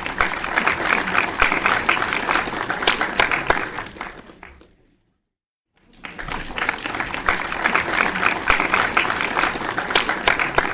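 Crowd applauding: a burst of clapping that fades out about four to five seconds in, a brief silence, then a second round of applause that swells up again.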